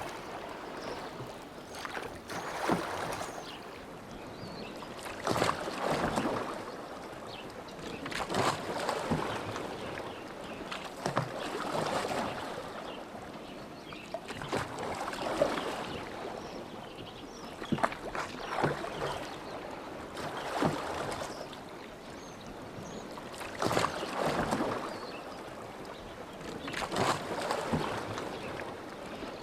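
Oars of a rowboat dipping and pulling through lake water, a splashing surge about every three seconds with sharp clicks at some strokes.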